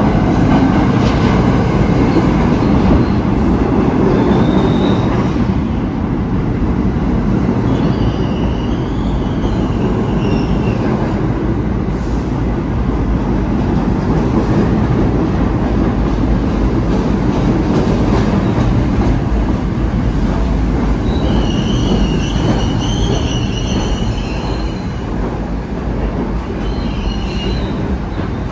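R68 subway train pulling into an underground station, its wheels rumbling loudly over the rails. High-pitched wheel squeal rises out of the rumble about a third of the way in and again for several seconds near the end.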